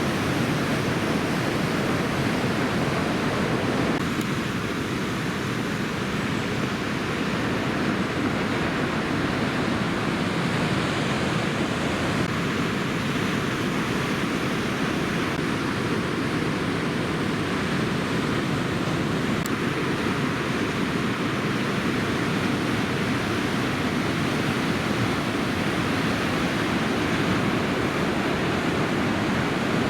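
Steady rushing noise of ocean surf from a heavy swell, mixed with wind on the microphone.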